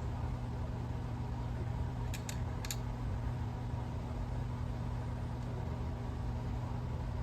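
A steady low hum, like a fan or other small machine running, with three faint clicks a little after two seconds in.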